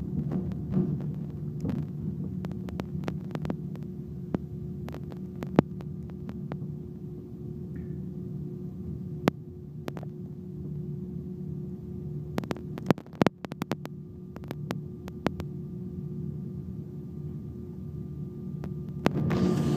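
Steady low hum of an airliner cabin while the aircraft taxis, with a few light clicks and knocks scattered through it, several close together about two-thirds of the way through.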